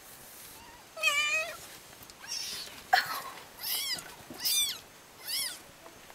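Newborn kittens mewing: a longer call about a second in, then three short, high-pitched mews about a second apart. There is also one sharp tap about three seconds in.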